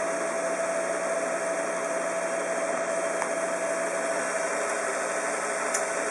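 Electric motors of a Teletype tape transmitter group running with a steady hum, the tape reader idle after its tape has finished.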